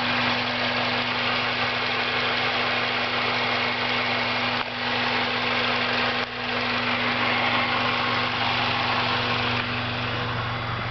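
Acura RSX's K20 four-cylinder engine running at a steady speed with a ticking sound, which turned out to be a spun bearing.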